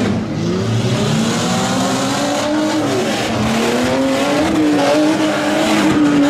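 Truck engine revving hard under throttle. Its pitch dips about three seconds in, then climbs steadily again.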